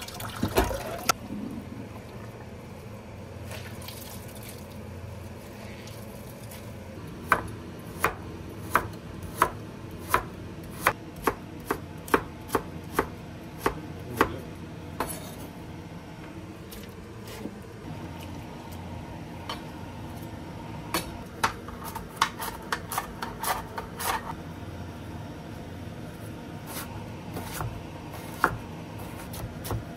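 Chef's knife cutting vegetables (burdock root, then carrots) on a wooden cutting board, each stroke a sharp knock of the blade on the board. From about seven seconds in there is a steady run of cuts at about one and a half a second, then shorter, quicker bursts of cutting later on.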